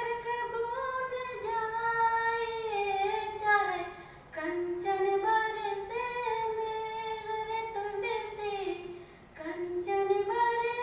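A woman singing a Hindi doha (couplet) without accompaniment, in three long melodic phrases with a short breath before each new phrase.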